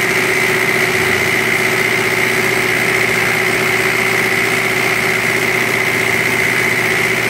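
Diesel injection pump test bench running steadily, its drive motor turning a four-cylinder inline injection pump for an Isuzu 4HG1 engine during calibration: a constant mechanical drone with a steady high whine.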